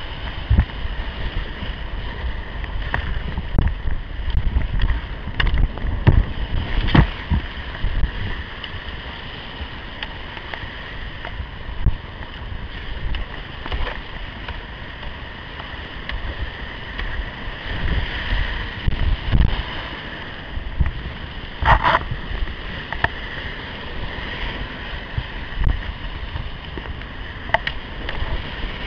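Whitewater rapids rushing and splashing around a kayak, picked up by a camera on the boat, with a heavy low rumble of water and wind buffeting the microphone. Brief sharp splashes and knocks come now and then.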